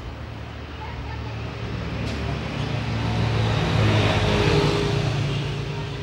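A motor vehicle passing by: a low engine hum and road noise swelling to a peak about four seconds in, then fading away.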